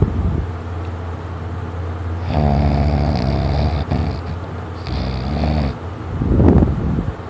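Heavy snoring: slow, drawn-out snores one after another, the last one, near the end, louder and rougher than the rest.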